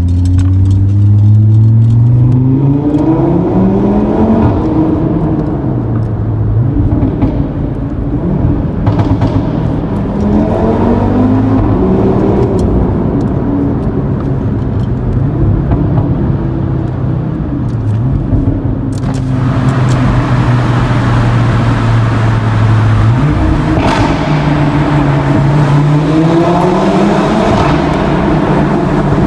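Audi RS3 8V's turbocharged 2.5-litre inline five-cylinder engine and sport exhaust pulling hard through the gears, rising in pitch in several runs, with steadier cruising stretches between them.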